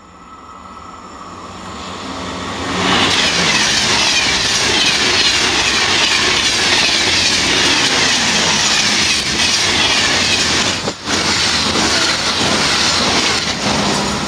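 SNCF TGV high-speed train passing close by at speed. Its sound rises for about three seconds as it approaches, then becomes a loud, steady rush of wheels on rail and air that lasts about ten seconds with one brief dip. It eases off near the end as the tail goes by.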